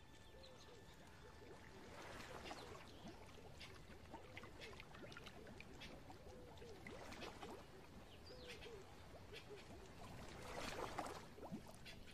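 Faint wetland chorus: frogs calling over and over in short croaks, with scattered clicks and chirps, and a few soft splashes of water, the loudest near the end.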